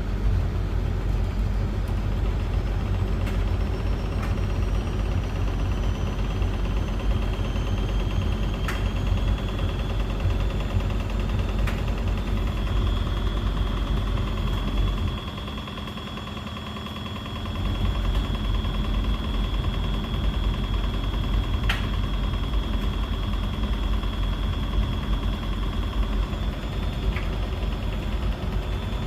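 Beko WS832425s washing machine on an intermediate spin: a heavy low rumble from the drum with a steady motor whine over it, from a slightly unbalanced load. About halfway through, the rumble drops for a couple of seconds, then picks up again.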